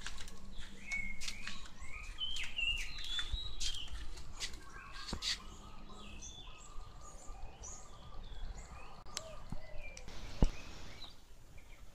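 Birds chirping and calling in quick short notes, with scattered sharp clicks and one loud knock about ten seconds in.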